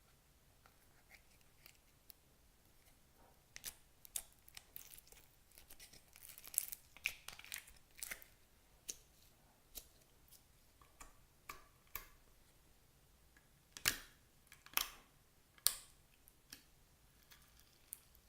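Clear slime being pressed and stretched by hand, giving irregular sticky pops and crackles, with three louder pops near the end.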